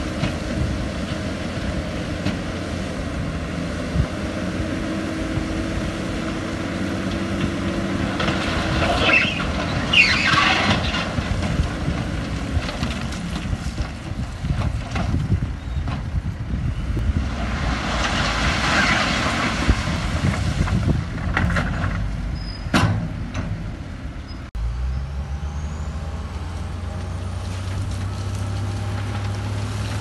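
Heavy diesel construction machinery running, with two long bursts of air hissing, one about a third of the way in and one about two-thirds in. About three-quarters of the way through, the sound changes abruptly to a lower, steady engine idle.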